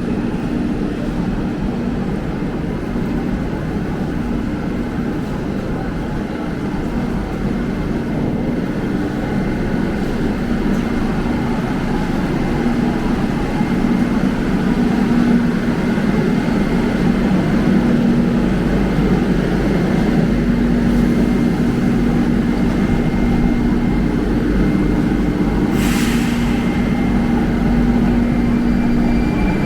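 Moscow Metro train running, a steady rumble with a low hum that grows a little louder about halfway through. A brief sharp hiss or clack comes near the end.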